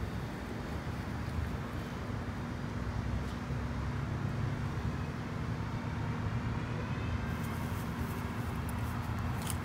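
A steady low mechanical rumble with a constant hum, like a distant motor. About seven seconds in, light clicks and rustling join it as the dog moves on the grass.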